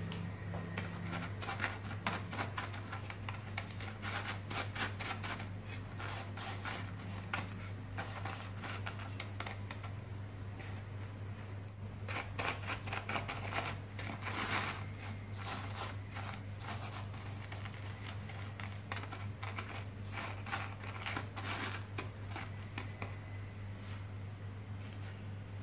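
Fried beignets rolled and pressed by hand in a plate of granulated sugar: irregular gritty scratching and crunching of sugar grains, busiest about halfway through, over a steady low hum.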